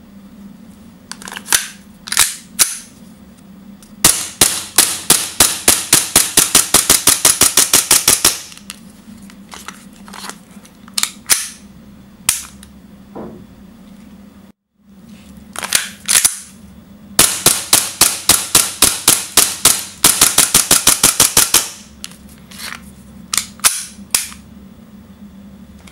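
WE M&P 9 gas blowback airsoft pistol firing, each shot cycling the slide. Single shots come first, then a rapid string at about seven shots a second for about four seconds. After a pause the pattern repeats with a second rapid string, then a few more single shots near the end.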